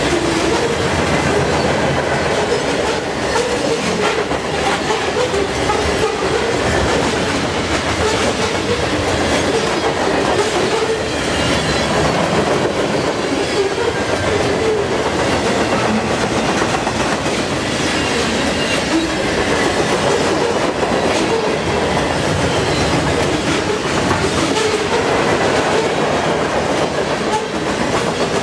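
Freight cars of a long mixed freight train rolling steadily past: a continuous rumble and rattle of steel wheels on rail, with clickety-clack over the rail joints.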